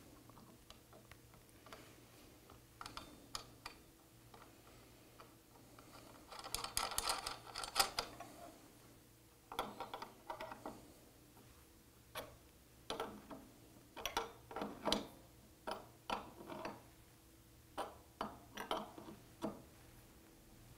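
Small metal clicks and scrapes of a lock nut being threaded onto a threaded rod and tightened down with a wrench, in short, irregular strokes, with a denser patch of scraping about a third of the way in.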